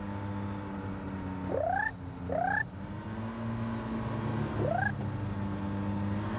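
Ultralight trike's engine running steadily with a low drone, its note shifting a little about halfway. Over it, young sandhill cranes give three short rising calls.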